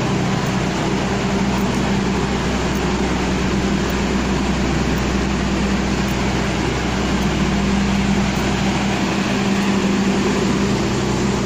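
Steady hum of a standing passenger train's diesel machinery and carriage air-conditioning, with an even low drone underneath.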